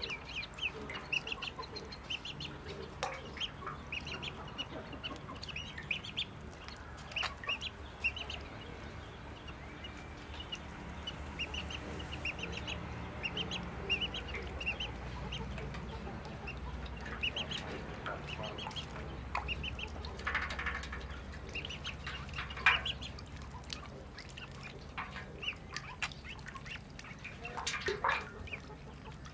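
A group of ducklings peeping, many short high-pitched calls in quick succession.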